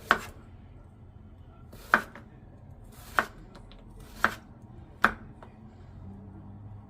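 Kitchen knife chopping on a cutting board: five separate, unhurried cuts roughly a second apart.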